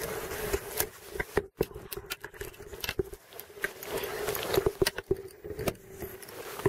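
Spinning reel being cranked by hand, winding in a line snagged on the bottom: a steady faint whir under repeated clicks, rattles and handling knocks close to the microphone.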